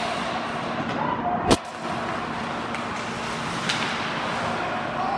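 Steady din of an ice hockey rink during play, with faint crowd voices and one sharp click about a second and a half in.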